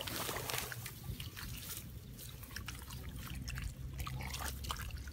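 Wet mud squelching and crackling under a bare foot treading into a waterlogged muddy patch, with many small wet clicks and trickles.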